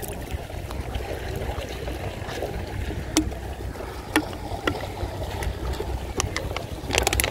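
Wind rumbling on the microphone while someone wades through shallow tidal water over a mud flat, their steps giving a few sharp clicks and splashes, with a cluster near the end.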